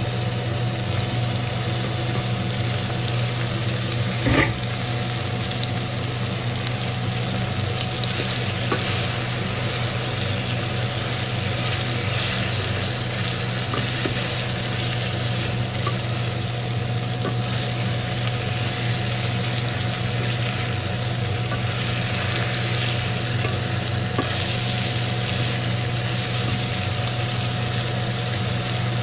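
Chicken livers with peppers and onions sizzling in a stainless steel pot as they are stirred with a wooden spoon, over a steady low hum. One loud knock about four seconds in.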